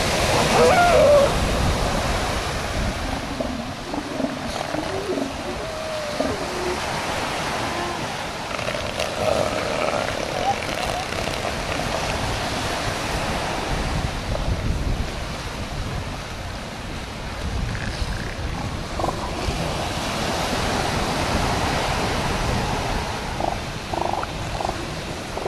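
Surf washing on the beach with wind on the microphone, mixed with wavering calls from male northern elephant seals sparring. The calls come in several spells, the longest near the end.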